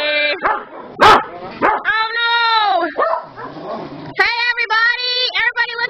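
Small dogs barking and yowling, several calls drawn out to about a second each with a rise and fall in pitch, and a quicker run of short barks near the end. A single sharp knock about a second in is the loudest sound.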